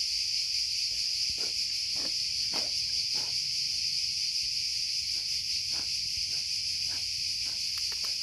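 A steady, high-pitched insect chorus, droning without a break. Faint scattered clicks and rustles sound over it.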